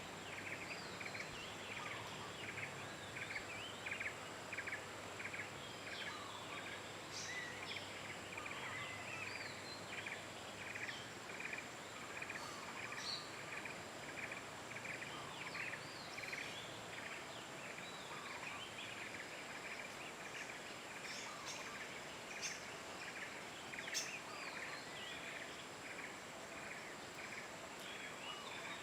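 Several birds calling, one repeating a short note about twice a second, over a steady high-pitched whine and a soft hiss. A single sharp click comes near the end.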